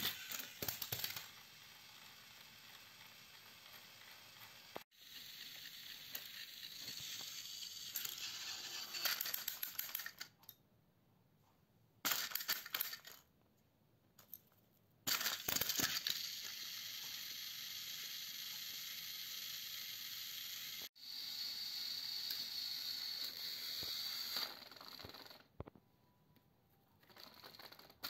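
Battery-powered toy train engines on plastic track, pushed nose to nose against each other: a steady whirr of small motors and gears under load, with rattling and clicking on top. The sound breaks off abruptly a few times, with short near-silent gaps between runs.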